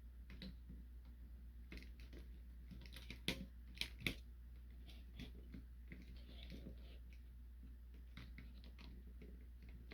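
Small plastic clicks and taps of a Transformers combiner figure's joints and parts being handled and adjusted to make it stand, with a few sharper clicks three to four seconds in. A faint steady low hum lies underneath.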